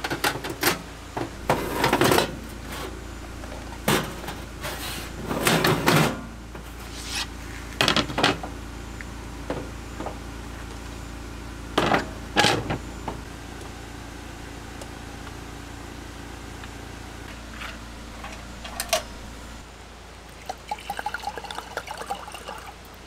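Metal and wooden clanks and knocks as a slide-out camp kitchen is set up: the stainless gas stove's pot supports and the folding wooden boards are set in place, with a series of sharp knocks over the first dozen seconds. Near the end comes a run of light, quick clinks.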